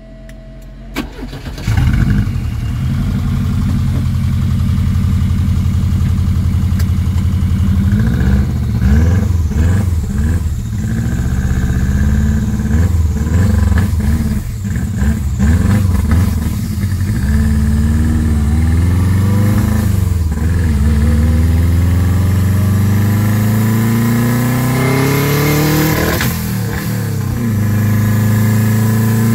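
Turbocharged Subaru EJ23 flat-four engine in a 1971 VW TL started with the key, catching about two seconds in, then pulling away: engine speed rises and falls for several seconds, then climbs in one long steady pull before a gear change near the end, heard from inside the cabin.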